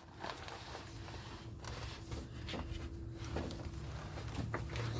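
Faint rustling and scraping of a person shifting about on cardboard, with small scattered clicks, over a low steady hum.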